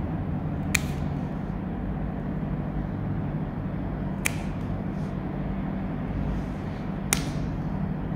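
Spring-loaded plier-style dog nail clippers snipping through a Maltese's nails: three sharp clicks a few seconds apart, over a steady low hum.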